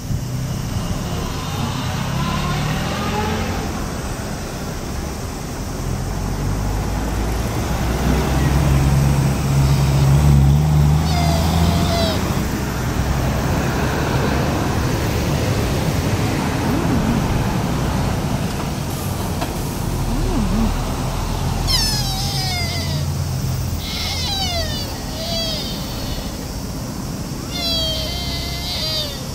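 Street traffic running past, with a series of short, high calls that fall in pitch from sika deer in the herd, first around 11 seconds in and then repeatedly in the last third.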